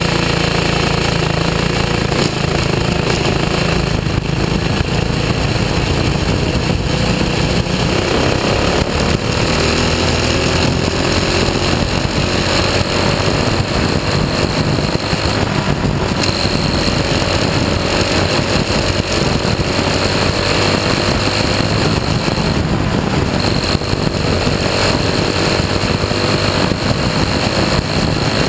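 Dirt-track race car engine running hard on track, heard on board, run without its restrictor plate. The engine note is loud and steady, and its pitch climbs gradually about eight seconds in.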